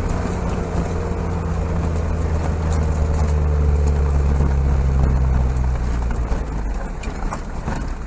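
A four-wheel drive's engine running steadily while driving on a rough dirt track, with light clicks and rattles over it. About six seconds in the engine note drops and gets quieter as the vehicle slows.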